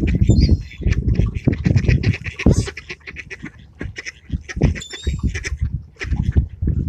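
A flock of ducks quacking busily, many short quacks overlapping, as they crowd for food being thrown to them. A few thin high chirps come from another bird at about five seconds in.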